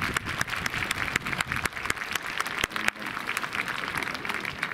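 Crowd of spectators applauding, many hands clapping at once.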